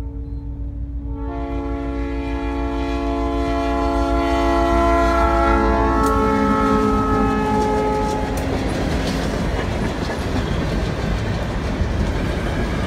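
Diesel freight locomotive passing close by, sounding its horn chord for the grade crossing over a low engine rumble; the horn shifts down slightly in pitch as the locomotive goes past and stops about eight seconds in. After that, loaded grain cars roll by with steady wheel clatter.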